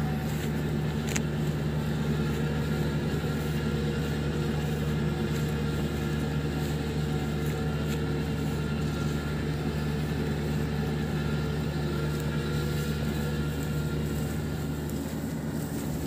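Kubota DC-70 combine harvester's diesel engine running at a steady speed as the machine travels, an even hum with no change in pitch.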